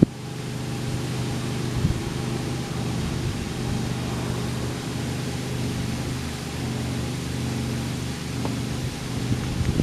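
Tour boat's engine running steadily, a low even hum under a steady hiss of water and air.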